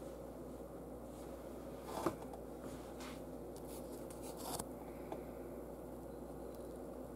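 Room tone: a steady low hum, broken by a few small clicks or knocks, the sharpest about two seconds in and a smaller cluster about four and a half seconds in.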